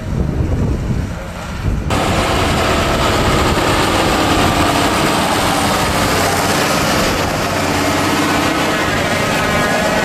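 Wind buffeting the microphone over a tractor working in a hayfield. About two seconds in, this switches suddenly to a large farm tractor and its trailed machinery running close by, loud and steady with a whine over the engine.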